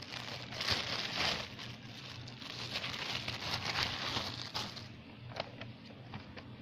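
Paper and packaging rustling and crinkling as they are handled and opened, with many small clicks; the rustling dies down about five seconds in.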